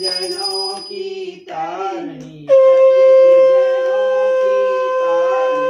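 Devotional aarti singing, then about halfway through a conch shell (shankh) is blown: one loud, steady note that starts suddenly and is held, drowning out the singing.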